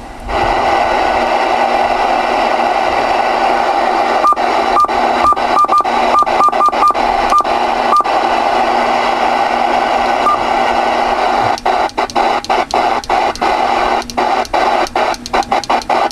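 Static hiss from a ten-meter radio's receiver speaker, with a string of short high beeps a few seconds in. Later the hiss keeps cutting out in quick, irregular breaks.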